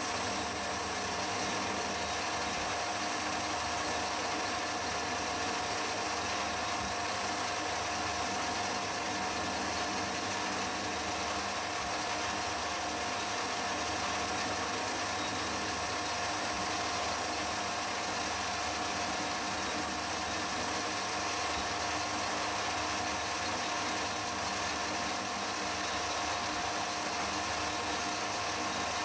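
Metal lathe running steadily with a constant whine while its tool turns the edges of a stack of aluminium sheet discs held by tailstock pressure against a live centre.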